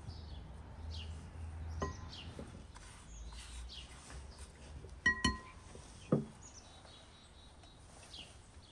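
Ringing clinks of a spatula and bowl knocking against a glass mixing bowl, the loudest pair about five seconds in, followed by a duller knock. Small birds chirp throughout with short, falling calls.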